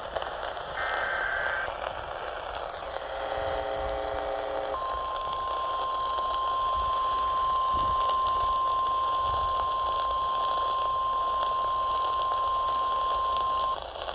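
Emergency Alert System tornado warning opening, over radio hiss: a short warbling burst of the digital SAME data header, a brief chord-like beep about three seconds in, then the NOAA Weather Radio warning alarm tone, one steady pitch held for about nine seconds.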